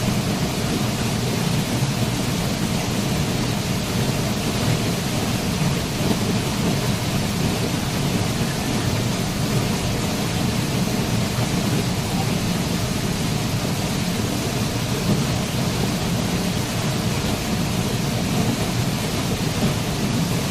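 A waterfall's falling water: a steady, unbroken rush with a deep low rumble beneath it.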